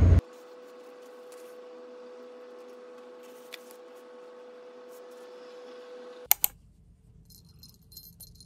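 Street noise cuts off at once, leaving quiet indoor room tone with a steady hum. A faint click comes midway and two sharp clicks follow about six seconds in.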